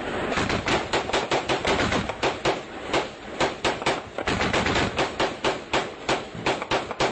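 Sustained gunfire in a firefight: rapid, irregular shots at roughly four a second, overlapping without a break.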